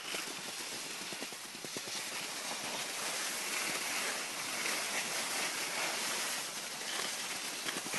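Steady rushing hiss of skis sliding and scraping over packed snow while skiing downhill, with faint scratchy bits mixed in.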